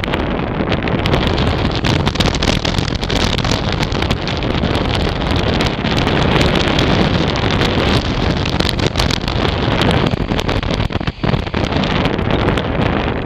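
Steady, loud wind noise on the microphone from the airflow over a hang glider in flight, easing briefly near the end.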